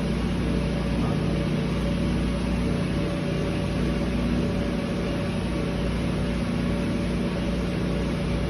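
Steady hum and drone of elevator machine-room equipment, with the hoist machinery and the governor wheels turning. The drone holds a constant low pitch throughout.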